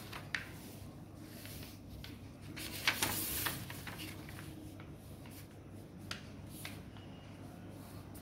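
A sheet of plain white paper handled and folded on a table: soft rustles and scattered crinkles, the loudest rustle about three seconds in.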